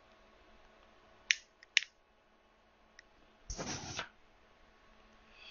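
Two sharp clicks about half a second apart, then a faint tick, followed by a short half-second rush of noise.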